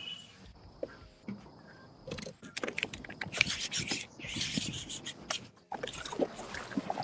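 Irregular scraping and rubbing noises from a fishing kayak while the angler reels in a hooked bass, getting louder about two seconds in.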